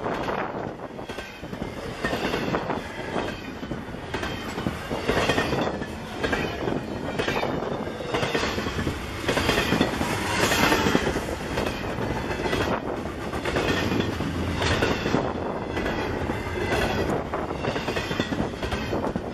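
Double-stack container freight train rolling past close by, its wheels clicking over rail joints in repeated groups. A high, wavering squeal from the wheels comes and goes.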